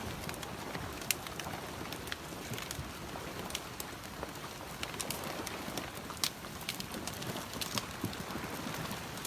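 Steady rushing noise of floodwater, with irregular sharp clicks and knocks scattered throughout.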